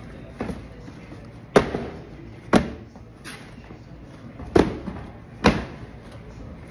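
Cardboard sneaker boxes being dropped and set down onto a stack, about six sharp thuds a second or so apart, four of them loud.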